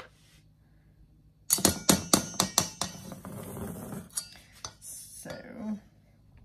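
Spatula scraping shortening out of a can and knocking against the can and a stainless steel mixing bowl: a quick run of sharp knocks about a second and a half in, then scraping, then a few lighter taps.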